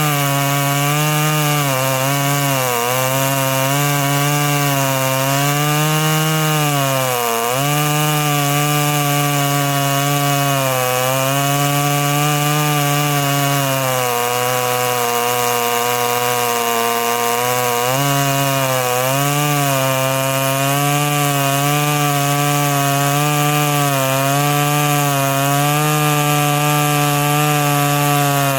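Ported Stihl MS194T two-stroke chainsaw running at high revs, its pitch sagging and recovering several times.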